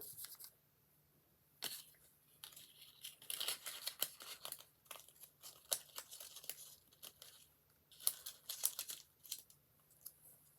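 Paper cupcake liners being handled, crinkling and rustling in irregular bursts with small clicks.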